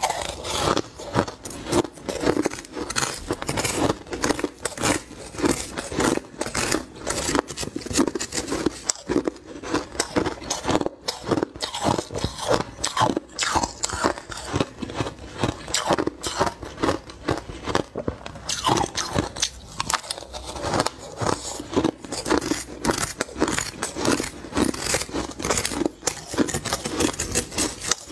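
A person biting and chewing mouthfuls of crushed ice close to the microphone, in rapid, steady crunches.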